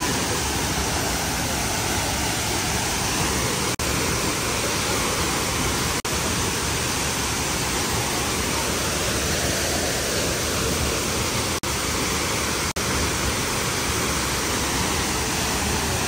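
Waterfall in heavy flow: a loud, steady roar of falling and rushing water, broken by a few momentary dropouts.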